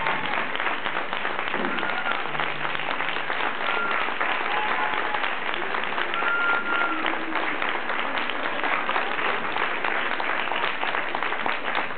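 Audience applauding steadily, with scattered voices calling out among the clapping.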